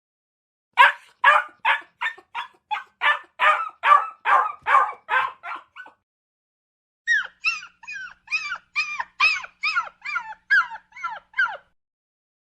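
A dog whining and crying in two runs of short, high whimpering cries, about three a second, with a pause of about a second between the runs; in the second run each cry falls in pitch.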